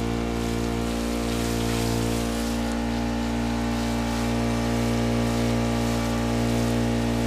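Honda water pump's small four-stroke engine running steadily at a constant speed, with a hiss of water spraying from the hose onto the plants.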